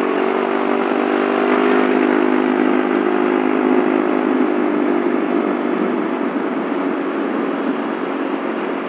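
Yamaha Mio Soul scooter's single-cylinder engine running at a steady cruise, its note holding an even pitch, with wind and road noise on the helmet-mounted microphone.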